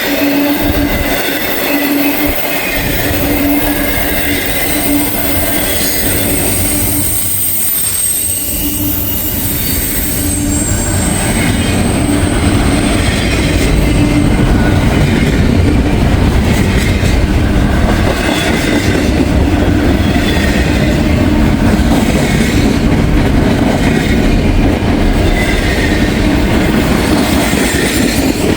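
Intermodal freight train's cars rolling past, a continuous clatter and rumble of wheels on rail, with a steady high ringing tone through the first third; it grows a little louder about halfway through.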